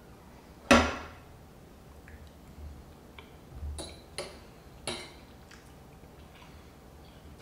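Metal fork clinking against a plate while cutting into a piece of pan-seared swordfish. The sharpest clink comes under a second in, followed by a few lighter clinks about four to five seconds in.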